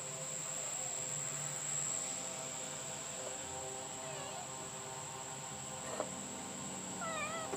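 Crickets trilling steadily at a high pitch, with a few faint wavering calls and one small click.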